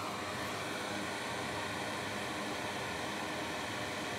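Steady fan-like hiss with a faint hum, unchanging throughout.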